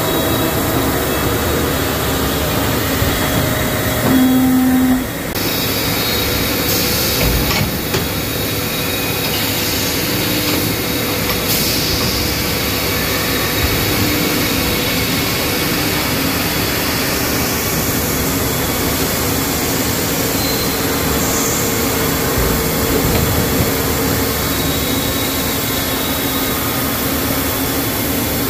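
CNC milling machine face-milling a forged steel truck front-axle I-beam under flood coolant: a steady noise of spindle, cutter and coolant spray with a constant hum. A short low tone sounds about four seconds in.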